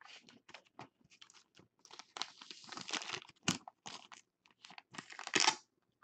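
Thin plastic crinkling and clicking as a sleeved trading card is slid into a rigid clear plastic top loader. Scattered small clicks, with denser crinkly stretches about two seconds in and again around five seconds.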